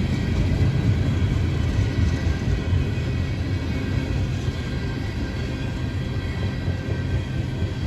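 A train running past with a steady low rumble and a faint steady whine above it.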